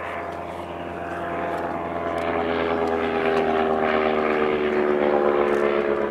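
Sopwith Triplane reproduction's Clerget 9B rotary engine running as the plane flies past. It grows louder, and its pitch drops slightly as it goes by in the second half.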